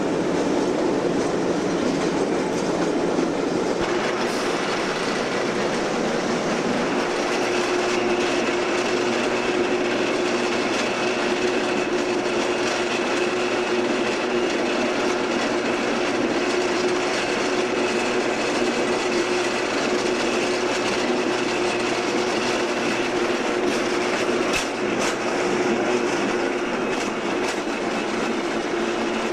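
Railcars of a work train rolling along the track, heard close beside the wheels: a steady rumble of steel wheels on rail with clacking. About seven seconds in a steady ringing squeal from the wheels joins, and a few sharp clicks come near the end.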